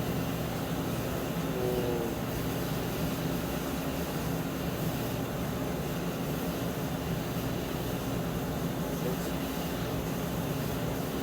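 Mori Seiki MV40M vertical machining center running, a steady mechanical hum, with a short wavering whine about two seconds in.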